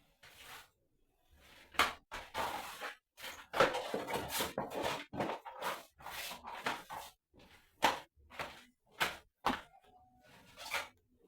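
Irregular knocks, thuds and rustling scrapes, as of things being handled and set down, with a denser spell of rustling about halfway through.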